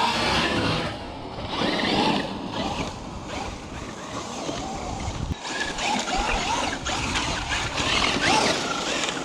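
Traxxas Unlimited Desert Racer (UDR) RC truck being driven on dirt: its electric motor whines up and down in pitch with the throttle, over a steady rush of tyres and gravel.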